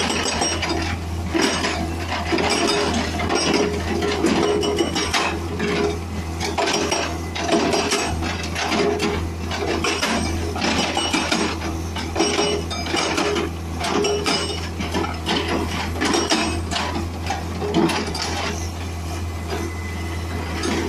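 Excavator-mounted hydraulic breaker hammering rock: a rapid, continuous run of hard metallic blows from the chisel, over the steady low hum of the excavator's engine.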